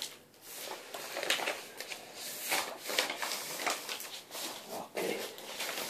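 Plastic flooring underlayment sheet rustling and crinkling as it is handled and smoothed on the floor, in a run of irregular swishes.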